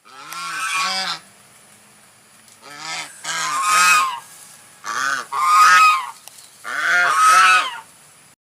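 Geese honking: four bouts of a few quick, repeated honks each, with short pauses between them.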